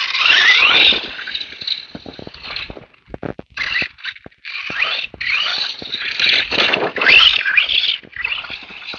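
FTX Outlaw RC car's brushless motor, running on a 2S battery, whining up in pitch in repeated bursts of throttle, mixed with a noisy scrabble of tyres and chassis over rough ground.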